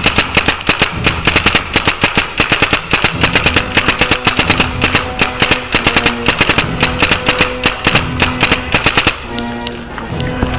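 Tippmann A5 paintball marker firing a rapid, unbroken stream of shots, several a second, which stops about nine seconds in. Background music runs under the shots and carries on alone after them.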